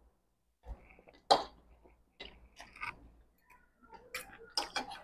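Noodle soup being eaten with spoons and forks: scattered clinks and scrapes of metal cutlery against bowls, with slurping and chewing between them. The sharpest knock comes about a second and a half in.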